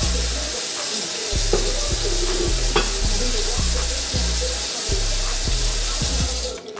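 Hip-hop instrumental beat with deep bass notes, playing over a steady hiss that cuts off sharply near the end.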